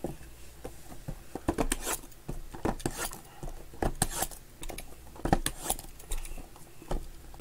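Cardboard trading-card hobby boxes being handled, slid and set down on a table: irregular taps, knocks and scrapes with some rustling.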